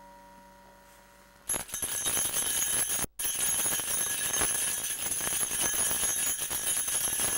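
An acoustic guitar's last chord rings out and fades. About a second and a half in, a loud, continuous jingling rattle cuts in abruptly, with a brief dropout about three seconds in.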